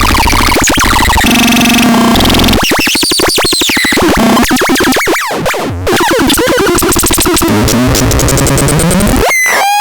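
Harsh, chaotic electronic instrument sounds from the SELTER: dense noise with sweeping pitch glides, a held cluster of tones about a second and a half in, and a fast stuttering pulse around three seconds in.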